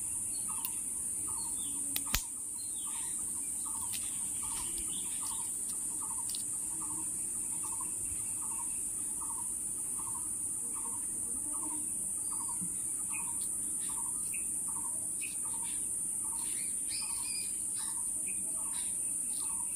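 A steady, high-pitched insect drone with a bird calling one short note over and over, about one every three-quarters of a second. Faint scattered clicks and rustles come from hands unwrapping the ice cream's packaging.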